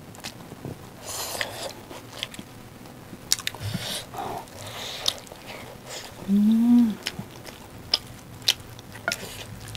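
Close-miked eating sounds of people eating rice and chicken curry with their hands: wet chewing and lip-smacking clicks scattered throughout, with squishy mixing of the food. About six seconds in, a short hummed "mmm" is the loudest sound.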